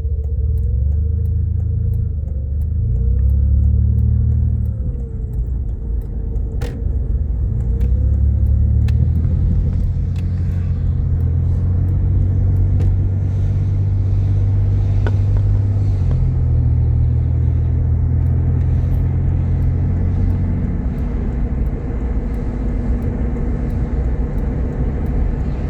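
Jeep Grand Cherokee's 3.7-litre V6 and road noise heard from inside the cabin while driving: a steady low drone that shifts pitch a few times as speed and gears change.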